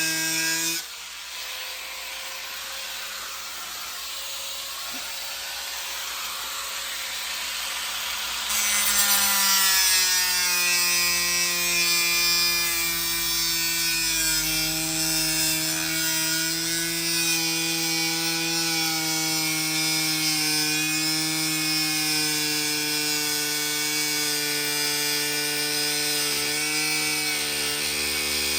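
Electric power saw cutting: a quieter hissing cut for the first several seconds, then from about eight seconds in a louder, steady motor whine whose pitch wavers slowly as the blade works through the material.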